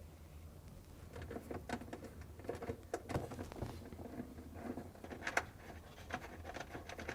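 Faint, irregular clicks and light scrapes of hand work on a refrigerator's freezer ice maker: a 1/4 inch nut driver backing out its mounting screws and plastic parts being handled.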